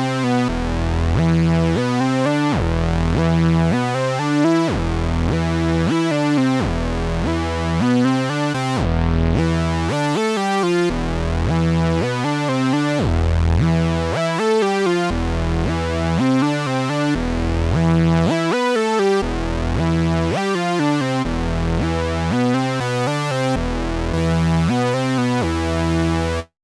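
Sampled Moog Minimoog synthesizer patch from the IK Multimedia Syntronik Minimod library, playing a bass-heavy sequence of notes, each with a sweeping filter. It cuts off abruptly just before the end.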